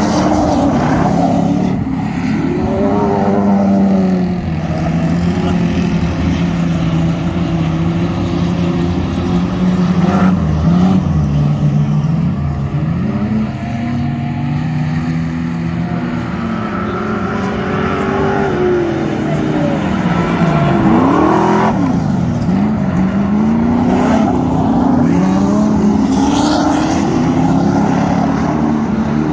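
Several standard saloon speedway cars racing together, their engines rising and falling in pitch as they accelerate down the straights and back off for the corners.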